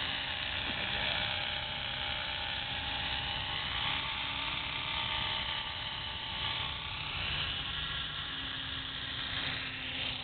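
EXI 450 electric radio-controlled helicopter hovering low: a steady whine from its motor and rotor blades, shifting slightly in pitch as it drifts.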